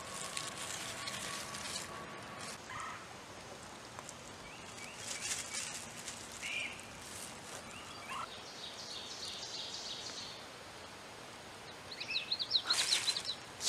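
Outdoor ambience with small birds chirping: scattered short calls, then a quick run of chirps near the end. A louder burst of noise comes near the end.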